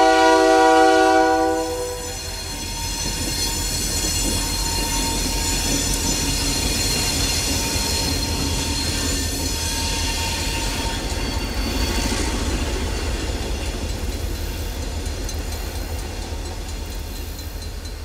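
Diesel freight locomotive's horn sounding a loud chord that cuts off about two seconds in, followed by the locomotives running past with a steady rumble that fades slowly near the end.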